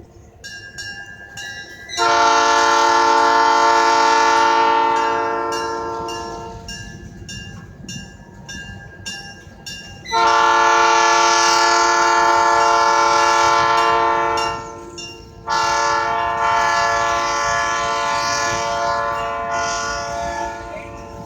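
Locomotive air horn sounding three long blasts, the first fading off and the last two close together.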